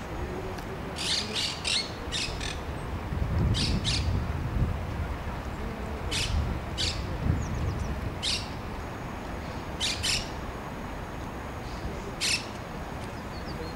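Short, harsh bird calls repeated singly or in quick twos and threes every second or few, over a steady low rumble.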